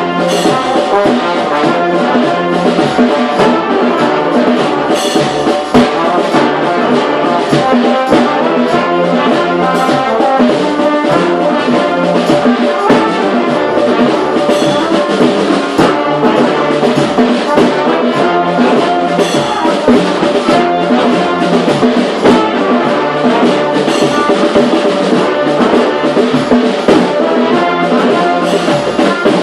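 Community street brass band of trombones, trumpets and other horns playing a tune together over a steady beat.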